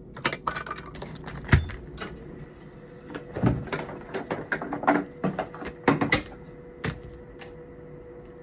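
Hands handling equipment: a series of irregular clicks, knocks and rustles, like plastic parts being handled and snapped into place, over a steady faint machine hum.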